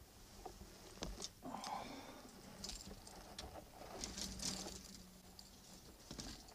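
Faint handling noise of someone moving about on a boat: scattered light clicks and knocks with short rustles of clothing, and a faint steady low hum from about four seconds in.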